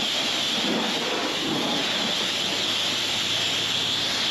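A steady hissing rush that keeps one level, with no breaks, strokes or pitch changes.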